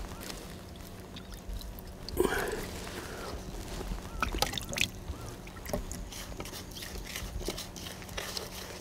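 Water being poured and sloshing in a plastic cup, with light clicks of fishing gear being handled. A brief murmured voice about two seconds in.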